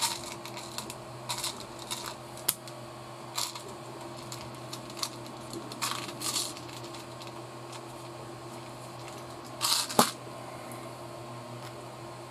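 Scattered light clicks and short rattles of small screws and plastic kit parts being handled, with the sharpest click about ten seconds in; a steady low hum runs underneath.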